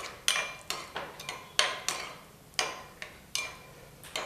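Steel spoon stirring yogurt raita in a glass bowl, clinking against the glass about twice a second with short ringing taps.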